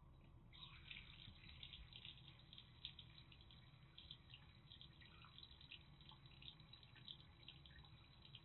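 Faint stream of warm water running from a bathroom sink's mixer tap and splashing into the basin, starting about half a second in.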